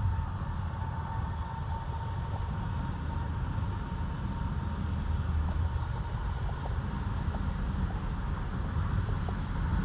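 Steady road and engine noise of a car driving on a highway, heard from inside the cabin as a low rumble.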